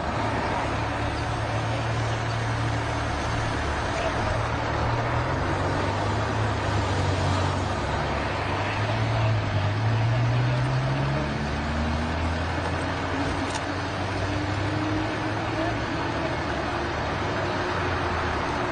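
Road traffic: vehicle engines running steadily, with one engine note climbing in pitch over a few seconds near the middle as a vehicle accelerates.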